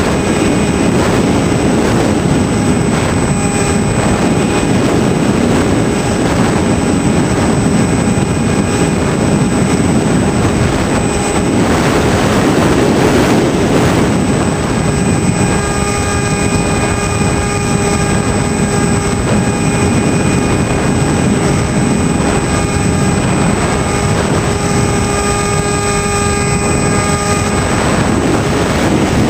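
Hawk Sky RC plane's electric motor and propeller in flight, heard from its onboard camera: a steady whine under heavy wind noise, the whine standing out more clearly in the second half.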